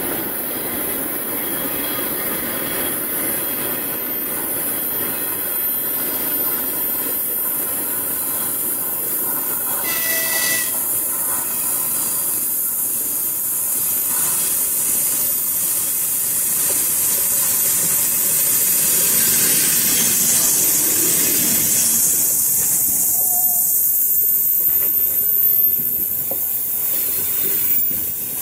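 EP2K electric locomotive and its passenger coaches approaching and rolling past on the rails: a continuous rumble and hiss of wheels on track that grows louder as the locomotive comes alongside. A short high tone sounds once about ten seconds in.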